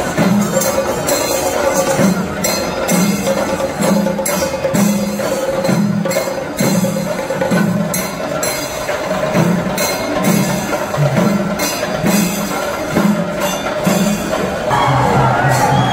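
Percussion-led music with a steady beat of about two strokes a second, sharp struck clicks and a held tone over it; the sound changes shortly before the end.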